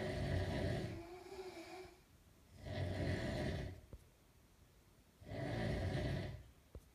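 Sleeping parent snoring: three snores, each about a second long, coming about every two and a half seconds with quiet breaths between. A short wavering tone follows the first snore.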